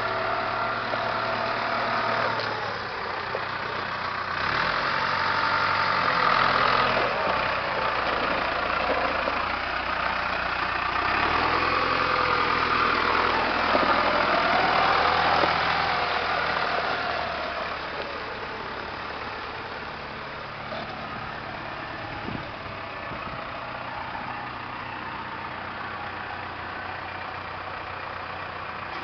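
Case CS94 tractor's diesel engine running at idle, steady throughout; louder through the middle stretch and quieter over the last ten seconds or so.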